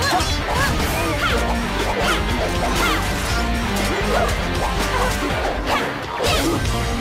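Fight-scene sound effects of hits, crashes and whooshes over steady action music.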